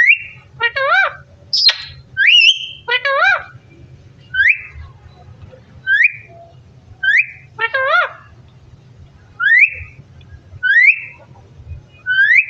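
Parrot giving a short rising whistle over and over, roughly every second and a half, with a few warbling, wavering calls mixed in.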